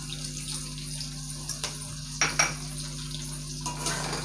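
Drumstick pieces sizzling in hot oil in an aluminium kadai, with a few sharp clinks of a metal spoon and spatula against the pan, the loudest about two and a half seconds in. Near the end the sizzling grows busier as the pieces are stirred.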